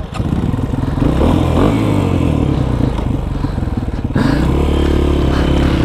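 Honda CRF230F dirt bike's single-cylinder four-stroke engine running up close under throttle. It gets louder about a second in and again at about four seconds.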